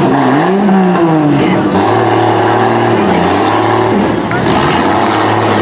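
Demolition derby mini truck engines revving hard, the pitch rising and falling, then held at a steady high note from about two seconds in while the trucks push against each other.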